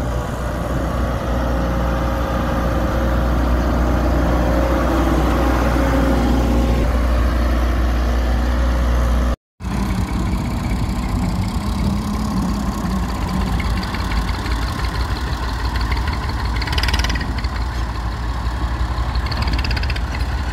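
Diesel engine of a Hyundai Robex 1300W wheeled excavator running with a steady low rumble as the machine drives; after a brief cut to silence, heavy diesel engines run on while the excavator loads soil beside an idling tractor, with a short hiss about three-quarters of the way through.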